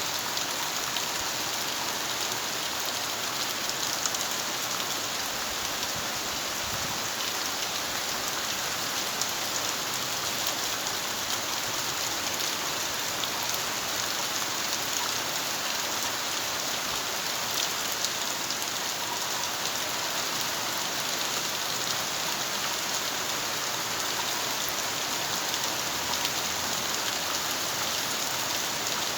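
Steady rain falling and pattering on surfaces, with scattered individual drops ticking.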